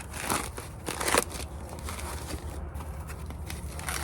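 Packaging crinkling and rustling as hands unwrap a parcel, with a few louder crackling bursts in the first second or so.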